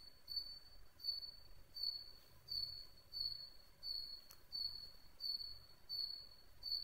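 A cricket chirping in a steady, even rhythm of about three high chirps every two seconds. A single light click comes about halfway through.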